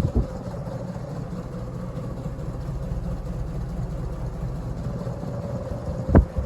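Westinghouse antique ceiling fan running at full power: a steady low hum and rumble with a constant whine from the motor, made noisy by its worn bearings. A single sharp knock comes about six seconds in.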